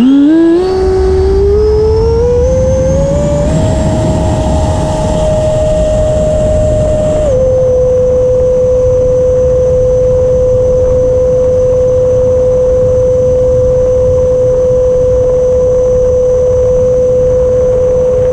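The 80mm electric ducted fan of an FMS Futura RC jet, heard close up from an onboard camera, spooling up with a rising whine for the takeoff run. About seven seconds in, the pitch steps down slightly as the throttle eases, and the whine then holds steady over a rush of air.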